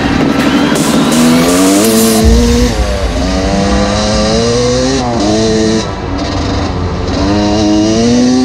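GasGas EC250 two-stroke enduro engine under hard acceleration: its pitch climbs through the revs and drops back at each gear change, several times over.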